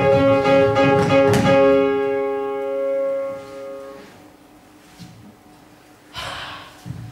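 Instrumental music: a held chord with plucked, strummed notes over it, which cuts off about four seconds in. After a short lull comes a brief scuffing noise near the end.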